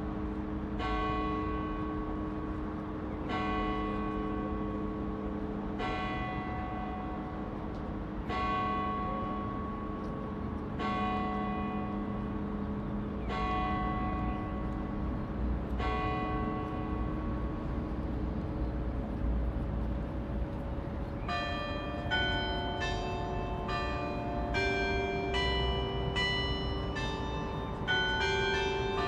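Church bells ringing. A single bell is tolled slowly, about one stroke every two and a half seconds, each stroke left to ring on. About two-thirds of the way through, several bells of different pitches start sounding in quicker succession, about two strokes a second.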